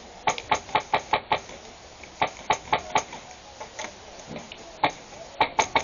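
Airsoft guns firing sharp single shots in quick runs of several a second, with short pauses between the runs.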